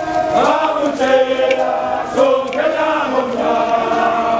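A large group of men singing a traditional Ndebele chant together, many voices in held, overlapping phrases.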